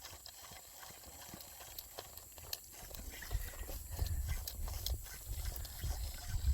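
Calf drinking from a milk bottle: scattered small clicks and knocks, with low thumping that grows from about three seconds in.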